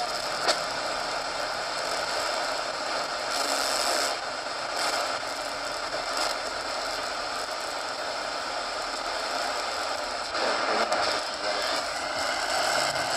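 Shortwave static hissing from the speaker of an AudioCrazy AC-Q1AR portable radio as its analog dial is tuned across a shortwave band, with no clear station coming in. There is a sharp click about half a second in.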